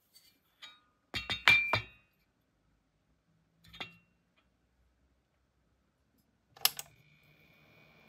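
A glass lamp bulb being set down on a table, clinking several times in quick succession with a short ring, then a lighter knock. Near the end a click is followed by a faint steady high whine over a low hum, from the flyback-transformer high-voltage generator running.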